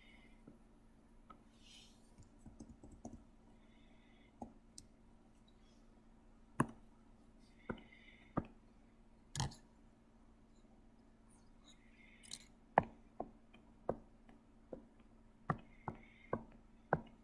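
Computer mouse clicking: a dozen or so sharp single clicks, a few scattered through the first half and coming closer together in the second half.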